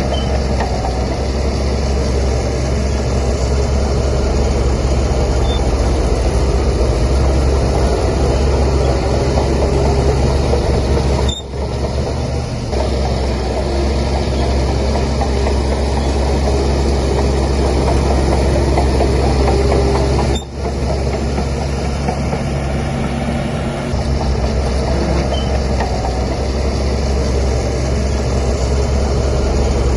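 Heavy diesel engine of a Shantui DH17C3 bulldozer running steadily with a deep low rumble while pushing soil. The sound briefly drops out twice, about a third and two-thirds of the way through.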